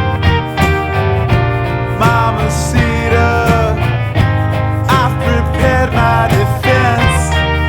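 Rock band music at a slow, even pace: guitars with bending notes over bass and regular drums.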